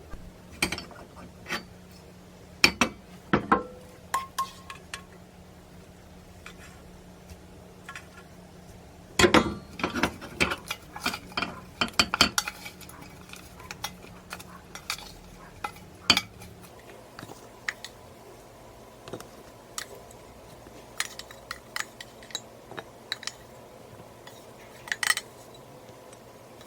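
Cutlery and dishes clinking in scattered light knocks, with a busier run of clatter about a third of the way in, over a low steady appliance hum that stops a little past halfway.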